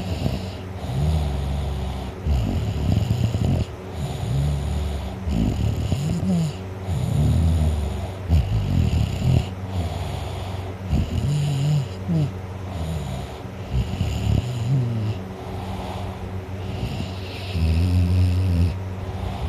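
A teenage boy snoring loudly in deep sleep: a harsh, low rattle with the breaths, coming again every one to two seconds, some snores rising or falling in pitch.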